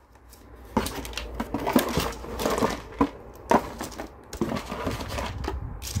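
Hands handling car alarm parts out of a cardboard box: rustling of wiring looms and irregular clicks and knocks of plastic parts being set down on a table.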